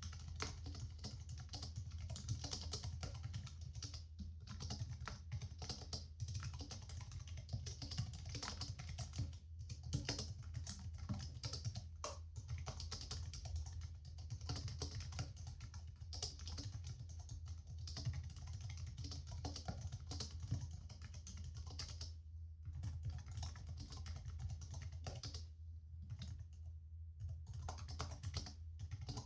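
Continuous, fast typing on a computer keyboard, dense key clicks over a steady low hum, with two short breaks in the typing late on.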